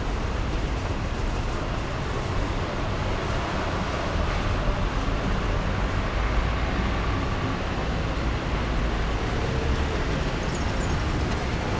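Steady low rumble and hiss of distant traffic, with no single event standing out.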